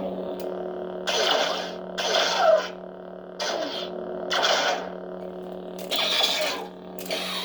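Lightsaber sound board playing its Old Ben (Obi-Wan) font through the hilt's speaker: a steady electric hum with about six swing whooshes as the blade is waved.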